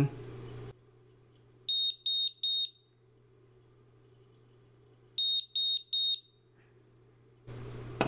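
Smoke alarm's piezo buzzer sounding in its three-beep pattern: two groups of three short, loud, high-pitched beeps, about two and a half seconds of pause between the groups.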